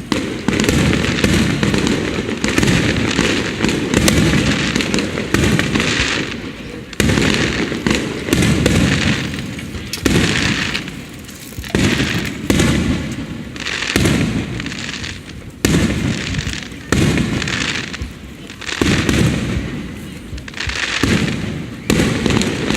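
Aerial fireworks bursting one after another, a boom every second or two, each dying away in a long rumble with crackling.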